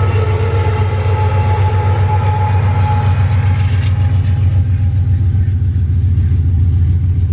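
Diesel locomotive of a freight train of ore hopper wagons passing at speed: a loud, steady engine drone with a few held tones above it. The higher part of the sound thins out after about four seconds.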